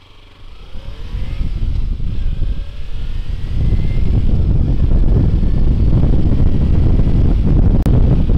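Sport motorcycle accelerating away, its engine note rising through a few climbs in pitch over the first couple of seconds. Then it is at road speed, with a steady loud rumble of engine and wind on the microphone.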